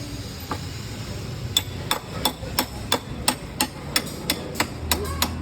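Hammer blows in a quick, even series of about a dozen strikes, roughly three a second, starting about one and a half seconds in.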